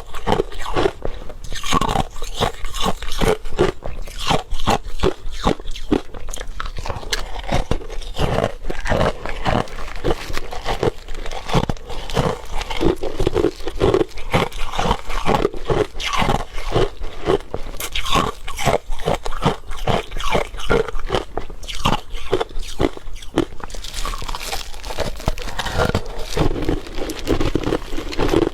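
Crushed ice being bitten and chewed close to the microphone: a rapid, continuous series of loud, sharp crunches.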